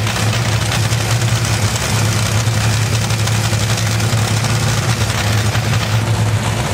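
Top Fuel dragster's supercharged nitromethane Hemi V8 idling at the starting line, a loud steady low drone with no revving.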